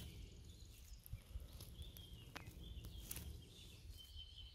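Near silence: a few faint clicks and rustles over a low rumble, with a faint high tone coming and going.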